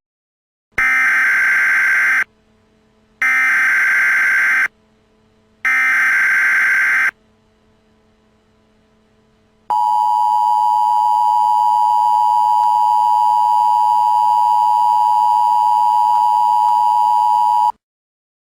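Emergency Alert System tones: three short raspy digital data bursts (the SAME header), each about a second and a half long with a second's gap between them. A few seconds later the steady two-note EAS attention signal sounds for about eight seconds and cuts off abruptly.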